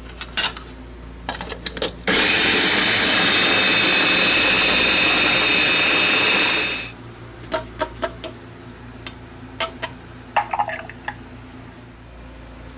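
Electric food chopper running steadily for about five seconds as it chops peppers and onions, then shutting off. Clicks and knocks of the chopper's lid and bowl being handled come before and after.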